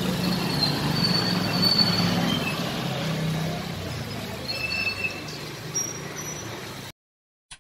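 Outdoor street ambience: a steady low rumble of traffic with a few short, high, thin whistling tones over it. It cuts off abruptly near the end, followed by a faint click.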